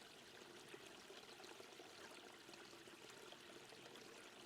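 Near silence, with only a faint, steady sound of running water in the background.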